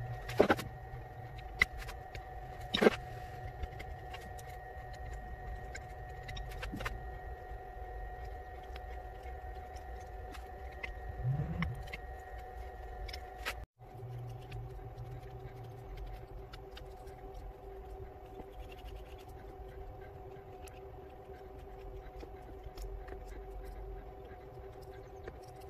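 Hand carving knife paring a small wooden lure body held in a vise: faint scraping cuts and scattered sharp clicks, the two loudest near the start, over a steady background hum.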